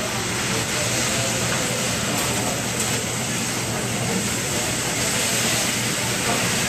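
Noodles sizzling on a hot teppanyaki griddle as they are stirred and tossed with a metal spatula: a steady hiss.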